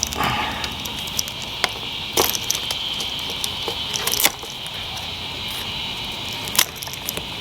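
Sharp clicks and light rustling from hands working a car dashboard's wiring harness, undoing and handling small spade connectors and warning-light bulb holders. A steady high hiss runs underneath.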